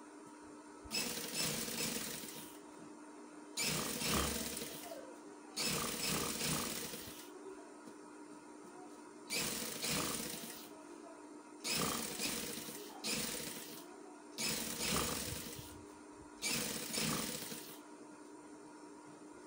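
Motor-driven sewing machine stitching fabric in about seven short runs of a second or two each, stopping briefly between runs; a faint steady hum carries on between them.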